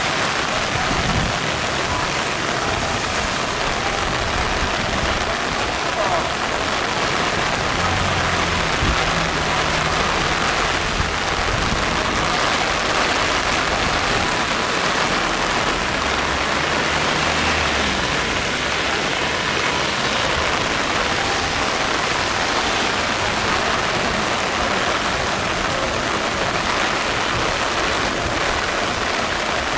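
Heavy typhoon rain falling steadily, an even hiss with no break, with some low rumbling underneath in the first half.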